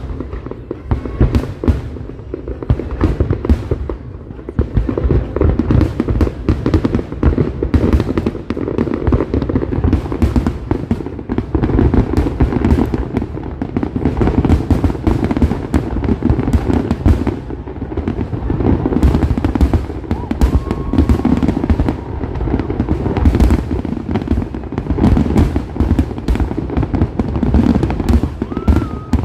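Large aerial fireworks exploding in a dense, unbroken barrage: rapid sharp cracks over deep, rolling booms.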